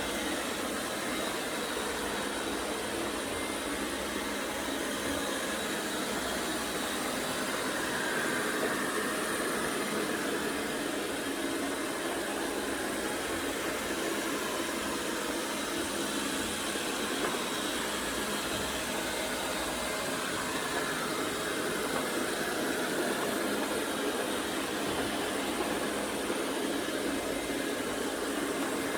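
Philips FC6408/01 cordless 3-in-1 vacuum cleaner running steadily: an even rushing whoosh of motor and airflow with almost no bass.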